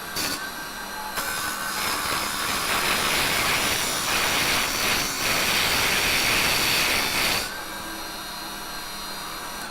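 Raitool 350 W mini wood lathe running with a steady high motor whine while a hand chisel scrapes and cuts spinning softwood, a loud even scraping from about a second in. The scraping stops about two seconds before the end, and the motor runs on alone.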